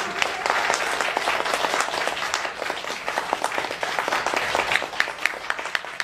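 Audience applauding, many hands clapping, the clapping thinning out toward the end.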